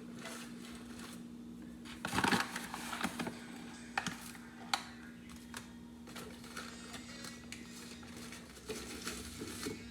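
A few light clicks, taps and rustles of a spoon and the percolator's metal coffee basket being handled as ground coffee is spooned in, the loudest cluster about two seconds in, over a steady low hum.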